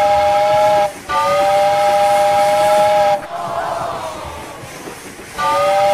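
A two-note whistle blowing in long, steady blasts. There is a short blast, then one of about two seconds, then a stretch of hissing, and a fresh blast near the end.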